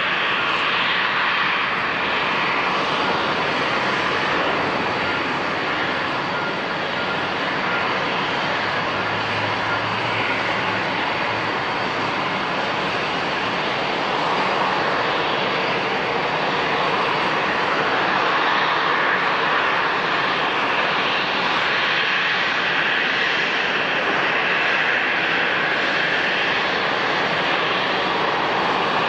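Aircraft engines running with a steady, loud rushing noise and a faint high whine.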